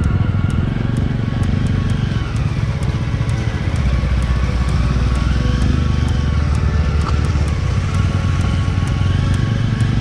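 Motorcycle engine running steadily at low road speed, with background music with a steady beat over it.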